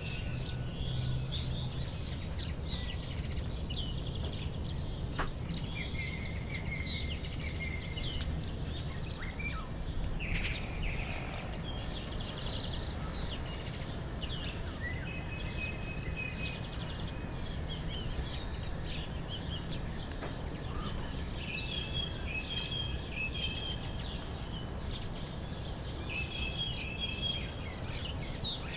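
Small birds chirping and singing, with repeated short trills throughout, over a steady low background rumble.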